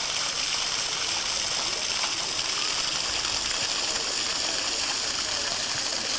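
Ornamental pond fountain: vertical water jets spraying up and falling back into the pool, a steady splashing rush of water.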